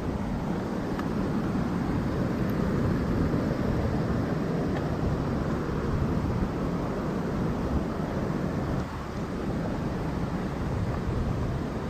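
Waterfall rushing and splashing in a steady, loud roar of falling water.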